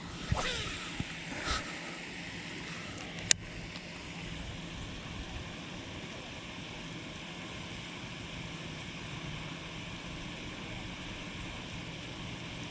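A cast with a spinning rod: a falling whizz as line pays off the reel, a short soft sound about a second and a half in, and a sharp click a little over three seconds in, as of the reel's bail snapping shut. Then steady wind and outdoor background noise.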